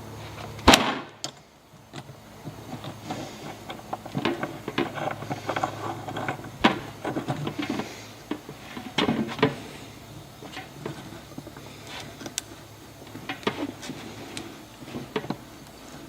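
Irregular clicks, knocks and light rattles of hardware being handled and fitted on a cooler mash tun, with one sharp knock about a second in.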